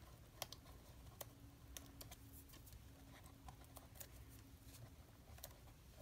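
Near silence broken by faint, scattered small clicks and ticks from fingers picking at and peeling the release paper off foam adhesive dimensionals on a cardstock panel.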